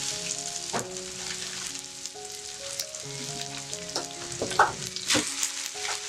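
Food sizzling as it fries in a pan, with a few knocks of a utensil as it is stirred, about a second in and again near the end. Soft background music with a slow stepping melody underneath.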